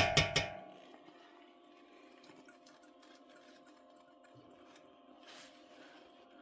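A quick clatter of three or four sharp knocks with a ringing tail in the first half-second, then a steady low hum with faint scattered clicks.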